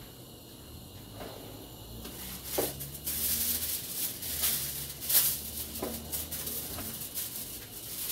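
Aluminium foil being handled and crinkled, an irregular crackling with sharp clicks that starts about two seconds in.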